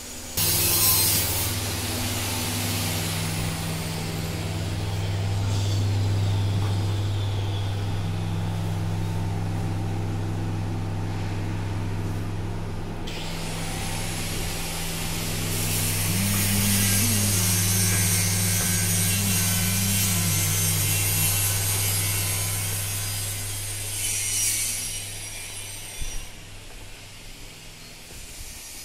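A motor-driven machine running steadily: a low hum under a loud airy hiss. The hiss cuts out briefly about halfway and comes back, and the hum fades out near the end.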